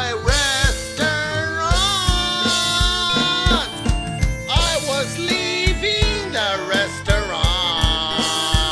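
Music: a song passage with a steady drum beat under a gliding melody line.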